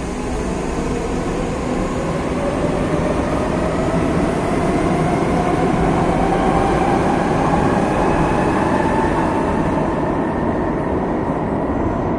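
Madrid Metro train pulling out of an underground station: wheels running on the rails and the electric traction motors whining, the whine rising in pitch as the train accelerates away.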